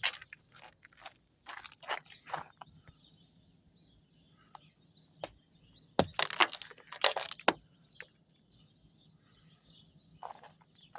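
Footsteps crunching on ice-glazed snow, irregular crunches with a louder cluster about six to seven and a half seconds in.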